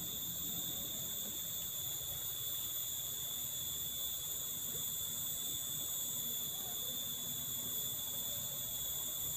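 A steady, shrill chorus of insects at several high pitches, running without a break.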